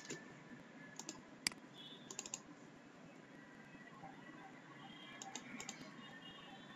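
Faint, scattered clicks of computer keys at a desk, the sharpest about a second and a half in, over a low background hiss.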